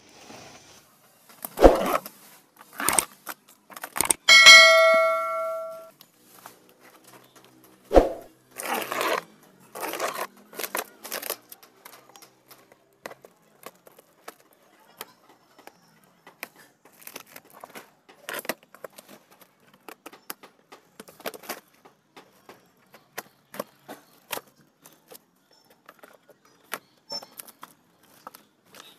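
A courier plant parcel being opened by hand: knocks, rustling and tearing of the packaging and tape, and a stretch of small crackles and clicks. About four seconds in there is a single ringing metallic ding that fades over a second or so.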